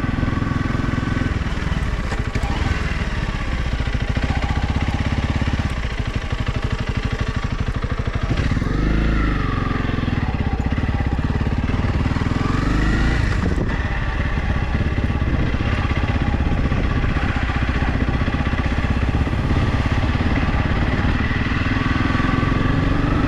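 Motorcycle engine running as it is ridden along a rough trail, its note dipping and rising with the throttle about nine seconds in and again a few seconds later.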